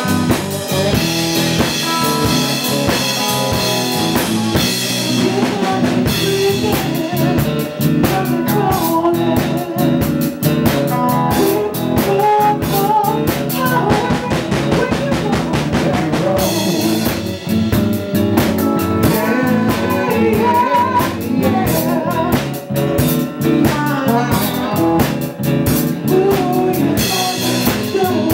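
Live blues band playing a steady groove on electric guitar and drum kit, with rimshots on the snare.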